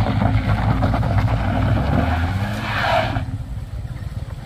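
Small car's engine revving hard under load on a steep loose-gravel climb, with a brief burst of hiss from the tyres scrabbling on gravel about two and a half seconds in; the engine sound then drops off sharply just after three seconds.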